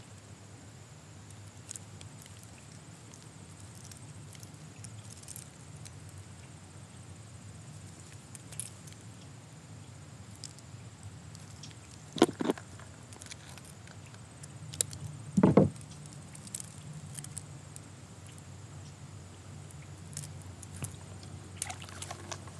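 Quiet handling of fishing tackle: small clicks and rustles of line, pliers and a plastic tackle box while a lure is tied on, with two short louder knocks about twelve and fifteen seconds in, over a faint steady low hum.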